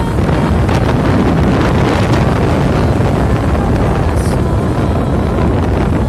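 Wind buffeting the microphone of a moving motorbike, over the steady low rumble of the ride.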